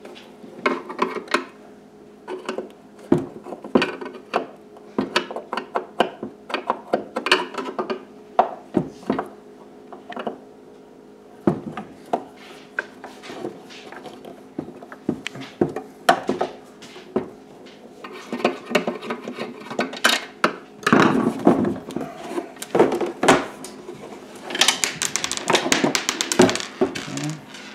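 Screwdriver work and handling of a Jeep Wrangler TJ's plastic centre console: irregular clicks, taps and knocks as screws are backed out and the shell is shifted about. Near the end comes a longer stretch of scraping and rubbing as the console is lifted and turned.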